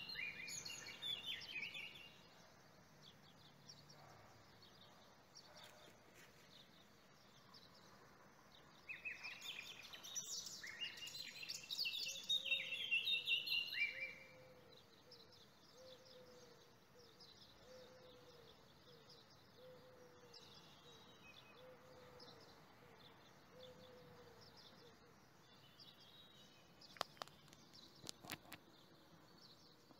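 Birds singing and chirping, in busy bursts near the start and again about ten to fourteen seconds in, with a lower short call repeated about once a second in between. A few sharp clicks near the end.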